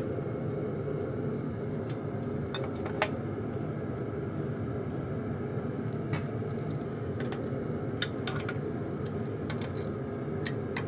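Scattered light metallic clinks and taps as steel forging-press dies are handled and fitted, over a steady low drone of running shop machinery.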